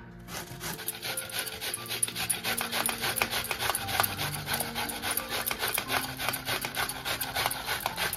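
Paneer being rubbed back and forth on a hand grater: quick, continuous rasping strokes.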